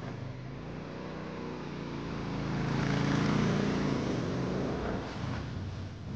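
Miniature truck ride vehicles running on their guided track: a steady motor hum with several pitched tones that swells to its loudest about halfway through and then eases off.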